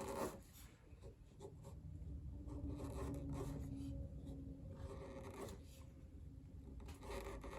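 Hand chisel paring a wooden plug flush with the side of a piano key: faint short scraping cuts across the wood, several strokes in a row.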